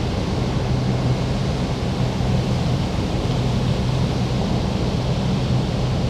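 Steady low hum over an even rushing noise from a running machine, unchanging throughout.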